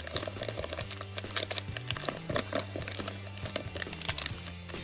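Plastic trading-card pack wrapper crinkling and tearing as it is peeled open by hand, with rapid sharp crackles, over steady background music.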